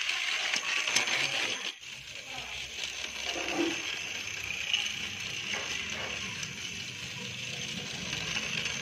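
Battery-powered toy steam locomotive running, its small motor and gears whirring with a light rattle.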